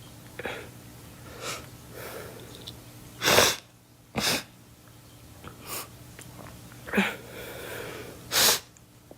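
A girl coughing, about seven short single coughs with pauses between them, the loudest about three and a half seconds in and near the end.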